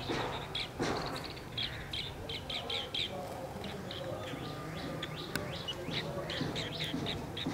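Asian green bee-eaters calling: short, high chirps in quick runs, busiest a second or two in, then fewer and more spaced out.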